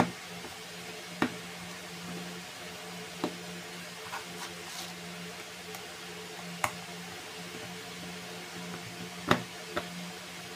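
Scattered sharp clicks and knocks of a screwdriver and fingers on the screws and plastic plate of an electrical switch board as the plate is screwed down into its box, about six over ten seconds, two of them close together near the end, over a steady low hum.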